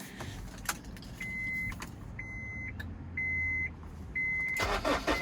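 Four evenly spaced beeps, about one a second, from the Honda S2000's warning chime, over a low rumble. Near the end the starter cranks and the four-cylinder engine begins to catch.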